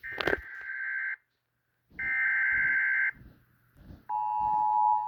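Emergency Alert System SAME header: two data bursts of warbling tones, each about a second long and a second apart, with a sharp click early in the first. About four seconds in, the steady two-tone EAS attention signal begins.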